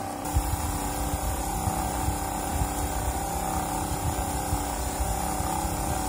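Homemade CD-disc air washer running: its small 12 V geared motor turns the disc stack through a friction drive, alongside a 12 V cooling fan. It gives a steady mechanical hum over an uneven low rumble, starting about a quarter second in.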